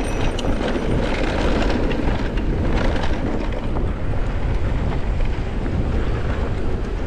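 Mountain bike rolling fast down a dirt trail: a steady wind rumble on the bike-mounted camera's microphone, tyre noise on the loose dirt, and scattered short clicks and rattles from the bike over bumps.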